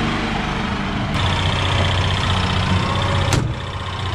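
1965 Unimog truck engine running steadily, with the sound changing abruptly about a second in and a sharp click near the end.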